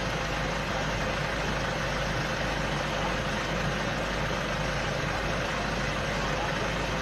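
A vehicle engine idling steadily, heard from inside the car's cabin as an even low hum under a constant hiss.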